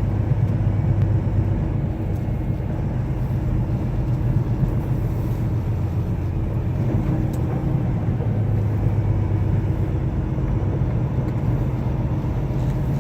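Semi truck's diesel engine pulling at low speed, heard from inside the cab as a steady low drone.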